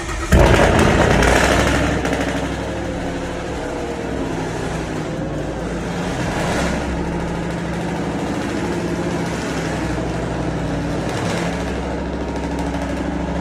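Ford Mustang with a built 5.0-litre Coyote V8, aftermarket cam and tune, starting up with a sudden loud flare, then settling into a steady idle.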